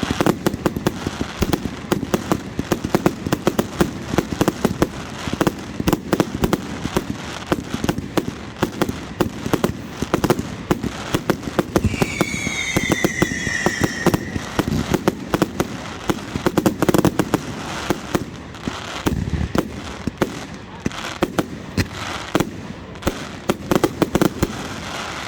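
Fireworks display: dense, rapid crackling and popping bangs, with a whistling firework whose note falls in pitch about halfway through. A crowd murmurs underneath.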